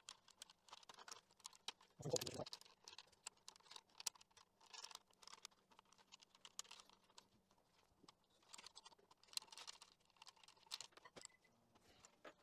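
Faint, irregular small clicks and taps of a leather bicycle saddle's metal rails and the seat-post clamp being handled as the saddle is fitted onto the post, with a brief louder scrape about two seconds in.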